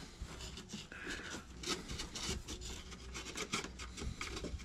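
Sandpaper rubbed by hand over the thin wooden planks of a model ship's hull, in quick, irregular scraping strokes.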